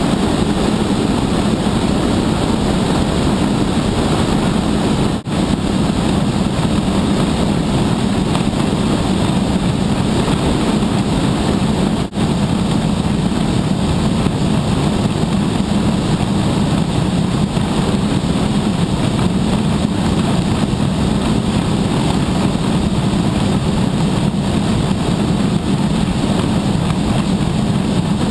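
Steady, loud rush of wind buffeting a GoPro camera carried inside a cooler as it descends, dropping out for an instant twice.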